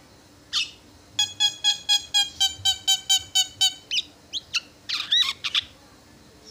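Javan myna calling: one short call, then a quick run of about eleven identical ringing notes, roughly four a second, followed by several short gliding whistles.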